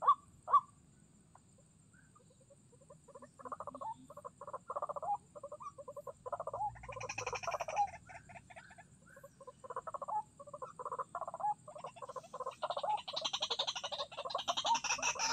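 White-breasted waterhen (ruak-ruak) calling: after a short lull, a rapid, uneven run of croaking notes starts about three seconds in and keeps going, with higher, shriller notes mixed in near the end.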